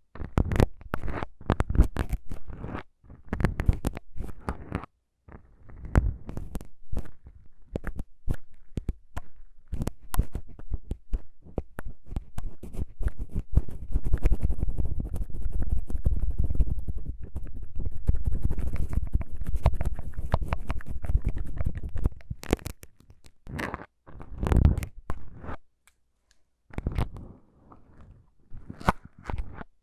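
Plastic syringes worked right at the microphones: a fast run of small plastic clicks and scratches from the plungers and barrels, broken by short pauses. For several seconds in the middle the rubbing gets denser and heavier. Near the end a syringe tip scrapes on a foam windscreen.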